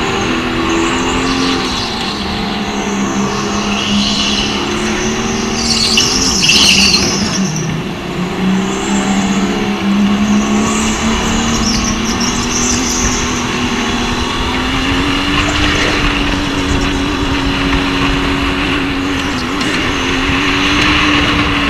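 Racing go-kart heard from onboard: its motor running with a steady tone that rises and falls with speed, and tyres squealing through the corners, loudest about six to seven seconds in.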